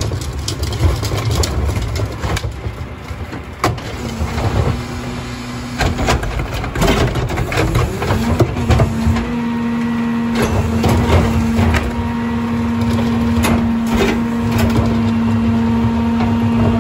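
Rear-loader garbage truck at work: knocks and clatter as plastic wheeled carts are banged against the hopper and trash falls in. About halfway through, the truck's engine revs up and holds a steady, even hum to drive the hydraulic packer.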